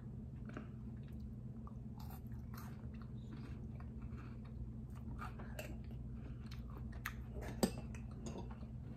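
A person chewing food with the mouth closed: faint, soft chewing clicks, with one sharper click near the end. A steady low hum runs underneath.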